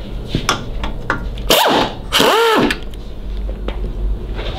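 A handheld cordless power tool, such as a drill or ratchet, run in two short trigger pulls, each spinning up and back down in pitch, with a few clicks of handling just before. It is at work on the Harley's front end, where the triple tree is being stripped.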